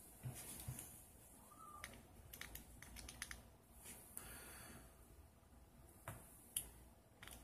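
Faint, irregular small metal clicks and scrapes from a precision screwdriver tightening the post screws on a rebuildable tank atomizer's build deck, clamping the coil leads down. The loudest click comes about six and a half seconds in.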